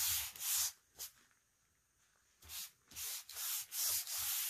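Gloved fingers rubbing back and forth across a paint-and-wax-coated foam-core board, dragging the paint into a wood-grain look: a series of short swishing strokes, pausing for about a second in the middle, then quicker strokes near the end.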